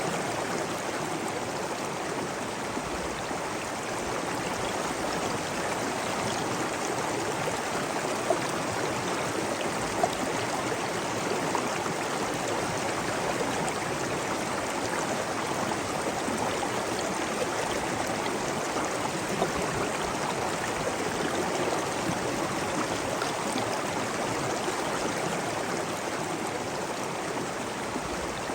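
Steady rushing of flowing water, a stream or waterfall, with a few brief splashes standing out above it.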